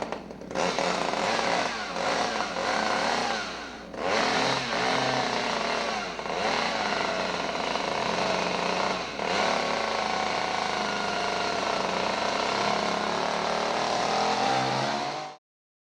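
Two-stroke chainsaw engine running and revving up and down, its pitch rising and falling with several brief drops; the sound cuts off abruptly near the end.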